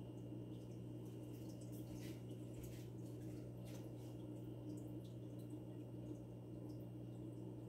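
Aquarium filter running: a steady low hum, with faint water dripping and trickling and scattered small ticks.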